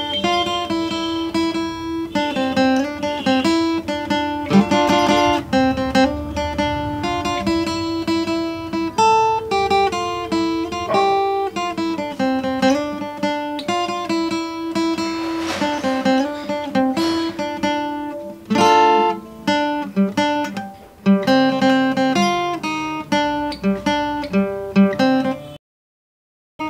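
Acoustic guitar playing a picked single-note melody over bass notes, with occasional strummed chords. Near the end the sound cuts out completely for about a second.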